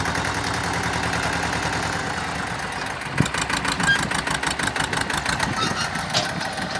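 A 30 hp farm tractor's diesel engine runs steadily as it tows a trolley loaded with onions over soft field ground. A single short knock comes about three seconds in, and the engine runs a little louder and rougher after that.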